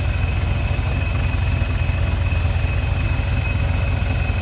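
Mitsubishi Triton pickup's engine idling steadily, a low fast pulsing with a thin steady high tone above it.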